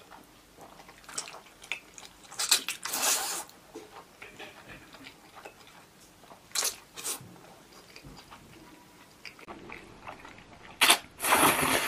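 Noodles being slurped into the mouth in several short, loud slurps, with a long slurp near the end the loudest, and faint eating clicks in between.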